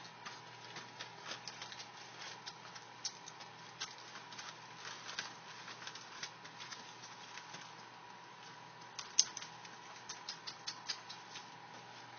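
Three-week-old pit bull puppies suckling from their mother: irregular small clicking and smacking sounds, with one sharper click about nine seconds in, over a faint steady high tone.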